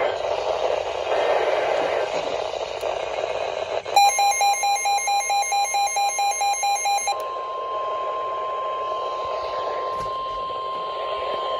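Weather radio static hiss, then about four seconds in the 1050 Hz NOAA Weather Radio warning alarm tone begins: one steady, unwavering tone that runs on. This is the signal that a warning message follows. For its first three seconds a pulsing beep, about five a second, sounds over it.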